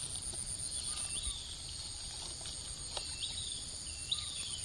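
Outdoor insect chorus: crickets giving a steady high-pitched buzz, with a bird's short rising calls repeating about once a second.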